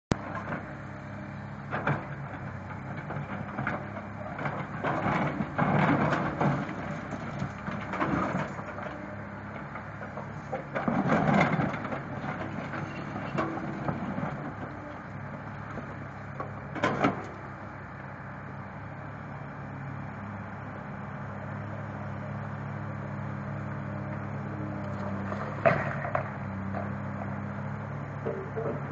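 Komatsu hydraulic excavator engine running steadily while its bucket breaks and scrapes concrete foundation slabs. Every few seconds there are loud stretches of crunching and grinding concrete, and there are single sharp knocks about 17 seconds in and again near the end.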